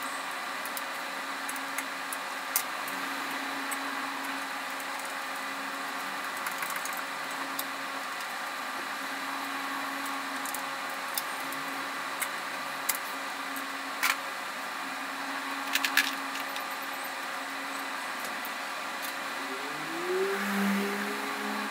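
Steady mechanical hum with a few sharp metallic clicks and taps from hand tools working on the van's underside. Near the end a brief tone rises and then holds for about two seconds.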